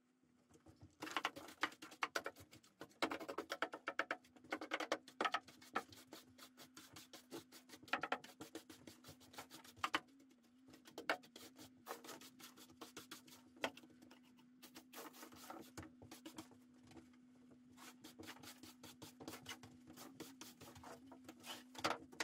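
Broom sweeping dirt and debris across a wooden floor: a long run of quick, scratchy bristle strokes, with a faint steady hum underneath.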